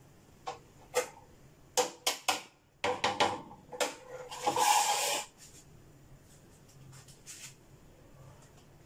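Kitchen handling noises: a few light knocks and clicks, then a brief rubbing scrape about four and a half seconds in, followed by a faint steady low hum.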